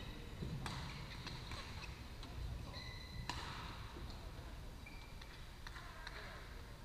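Badminton rackets striking shuttlecocks on several courts: a few sharp hits, two of them louder, with short high squeaks from court shoes, echoing in a large sports hall.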